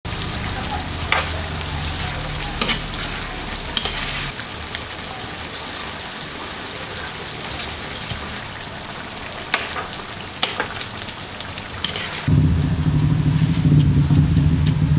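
Pork menudo stew in tomato sauce simmering and sizzling in a frying pan, with a metal ladle and spatula stirring it and clicking against the pan a few times. A louder low steady hum comes in near the end.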